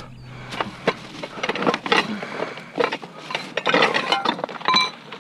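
Picture frames and other salvaged household items knocking and clattering together as they are rummaged through, in irregular clusters, with one ringing clink near the end.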